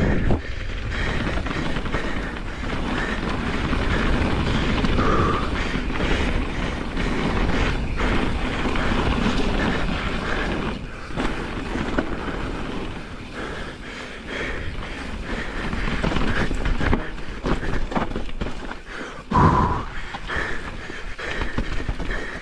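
Pivot Firebird enduro mountain bike descending a dirt singletrack: tyres rolling over the ground under a continuous rushing noise, with the frame, chain and suspension rattling and knocking over bumps. There is a louder clatter a few seconds before the end.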